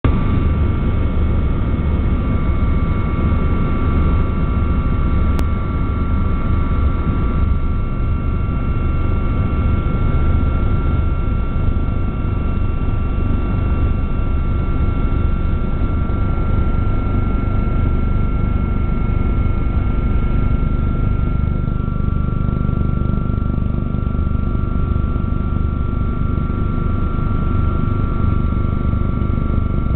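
Helicopter in flight heard from inside the cabin: a steady, loud engine and rotor drone with a low, fast beat and two constant high-pitched whines above it.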